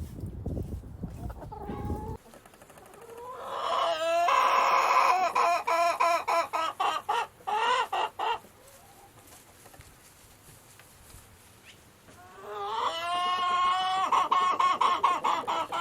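Chicken calling: two long, pitched calls, the first beginning about three seconds in and the second near the end. Each rises at the start, holds, then breaks into choppy pulses. A low rumble fills the first two seconds.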